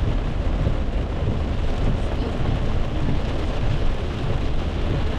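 Heavy rain falling on a car's roof and windshield, heard from inside the moving car, over a steady low rumble of the car on the wet road.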